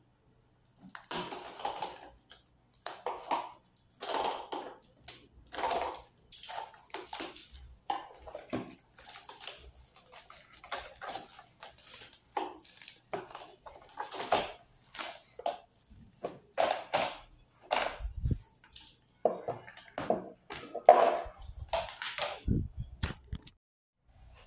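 Clear plastic wrap being slit and peeled off a plastic compartment organizer tray, crinkling and rustling in irregular bursts. In the second half a few low thumps come from the plastic tray being handled.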